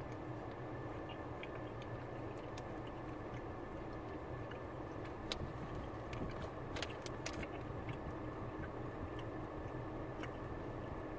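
Soft, sticky chewing of a Hi-Chew taffy-like candy: scattered small wet mouth clicks, a few sharper ones about five and seven seconds in, over a steady low room hum.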